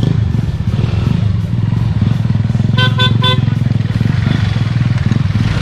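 A vehicle engine running steadily, with three quick horn toots about three seconds in.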